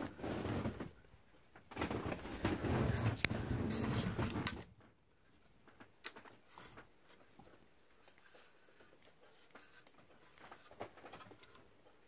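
CEC Georgian 303D ceiling fan running: the blades' air rushes over the microphone for about the first four and a half seconds, then cuts off suddenly. After that only faint ticks and rattles are heard close to the motor housing.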